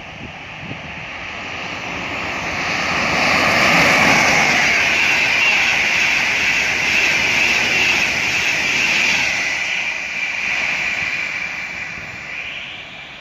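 An LNER express passenger train running through the station at speed: a loud rush of wheels on rail and air that builds over the first few seconds, holds, and then fades as the train draws away, with a steady high ringing tone throughout.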